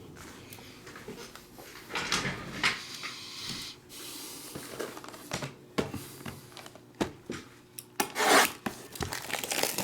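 Trading cards and foil pack wrappers being handled on a table: rubbing, sliding and scraping noises with small clicks, and a louder rustle about eight seconds in.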